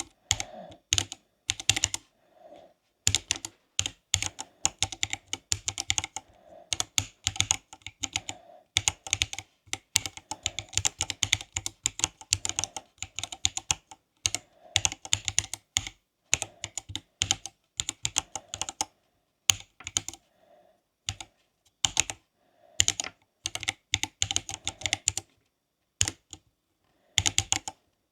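Typing on a Silakka 54 mechanical keyboard with Greywood switches: quick runs of key clacks in bursts, broken by short pauses.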